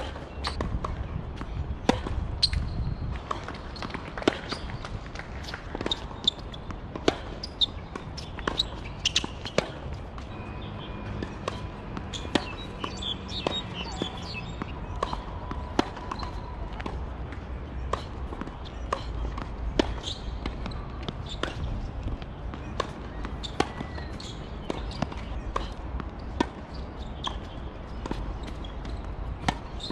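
Tennis balls struck by racquets and bouncing on a hard court: sharp, short pops at irregular intervals, sometimes about a second apart, with gaps between points.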